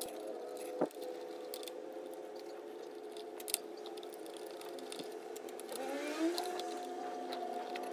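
Torx screws being backed out by hand with a small socket driver: light scraping and a few sharp metal clicks. Under them runs a steady droning hum that rises in pitch near the end.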